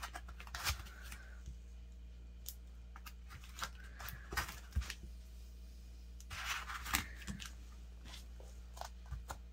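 Gel polish bottles being pushed and settled into the cut-outs of a foam packing insert: foam rubbing against plastic in short bursts, with light clicks and taps of bottles and long fingernails, busiest about six to seven seconds in.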